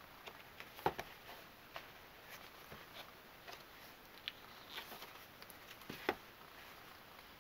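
Hands handling and turning a small cardboard box on a tabletop: faint scattered taps and rubs, with two sharper knocks about a second in and about six seconds in.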